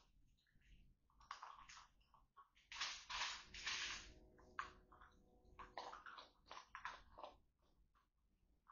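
Baby raccoons eating dry kibble from a metal bowl: irregular crunching and clicking of the pellets and bowl. A louder stretch of scuffling noise comes about three seconds in as they jostle at the bowl.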